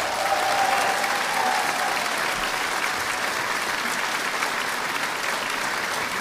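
Audience applauding steadily at the end of a choir and wind-band performance.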